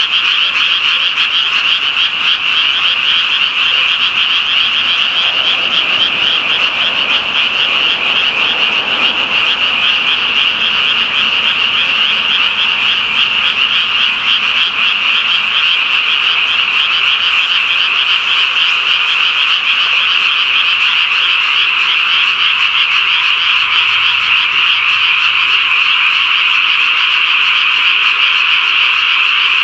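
Dense chorus of many frogs calling at once, a steady high-pitched trilling without breaks.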